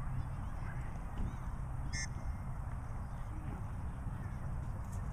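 Outdoor field ambience: a steady low rumble with a few faint, brief calls in the distance, one about two seconds in.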